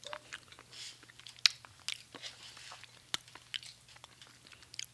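Close-miked eating: people biting and chewing food, with wet mouth clicks and smacks scattered through, the sharpest about a second and a half in.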